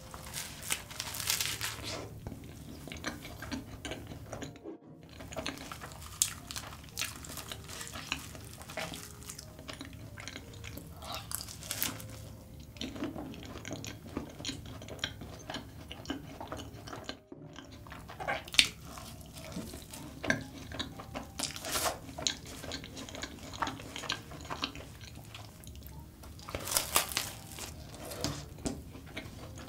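Close-up eating sounds: biting into and chewing soft custard-filled choux cream puffs coated in melted Nutella, with many small mouth clicks and smacks.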